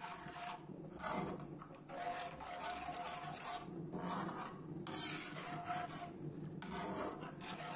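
Perforated metal spatula stirring thick gravy in a metal kadai, scraping and rubbing against the pan in repeated strokes with short pauses between them.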